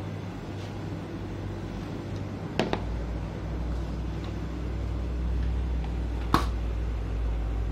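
Steady low hum of a glass-door refrigerated drinks cabinet, with two sharp clicks, one about two and a half seconds in and another about six seconds in, as the cabinet and a plastic cup are handled.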